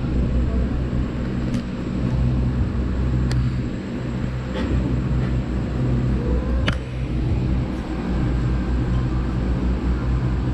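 A steady low engine rumble, like a vehicle idling, with a few faint clicks scattered through it.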